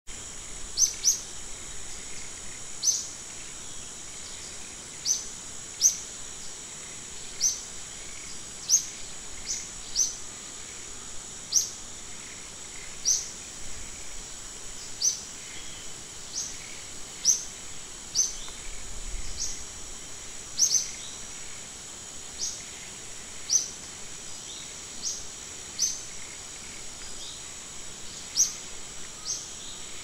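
Natural outdoor ambience: a steady high-pitched insect hum, with short, sharp chirps repeating irregularly about once a second.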